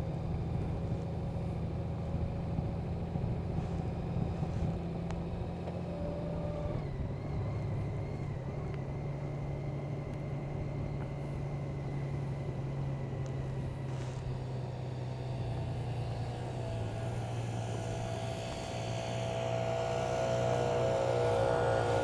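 Honda Gold Wing's flat-six engine running at low road speed, with a steady hum that drops a little in pitch about seven seconds in as the bike eases off. Background music fades in near the end.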